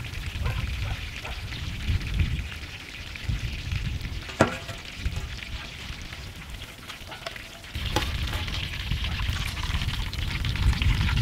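Quail deep-frying in hot oil in a kadai: a steady sizzle, with a metal slotted spoon stirring and knocking against the pan, one sharp knock about four and a half seconds in. The sizzle gets louder from about eight seconds on.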